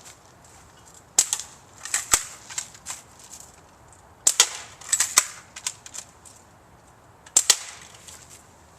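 Camouflage BB rifle being fired several times, each shot a sharp snap a second or more apart, with fainter clicks between the shots.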